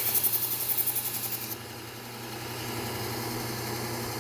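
Bucktool low-speed belt sander running with a 3M Trizact A30 belt. A small kitchen knife blade is ground against the belt with a high, rapidly pulsing hiss that stops about a second and a half in, leaving the sander's steady motor hum. This is the edge-refining pass.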